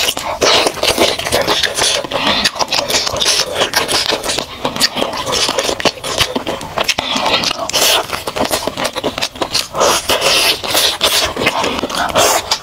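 Close-miked eating sounds: biting, chewing and sucking on a piece of chicken coated in red chili oil sauce, a dense run of wet clicks and crackles with no pause.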